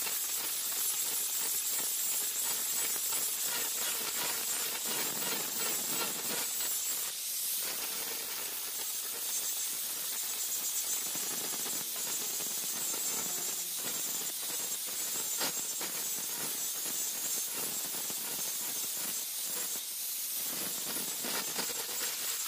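Electric angle grinder with an abrasive disc grinding the flat of a steel knife blade cut from a brush-cutter blade. It makes a steady hissing grind with a thin high whine running through it.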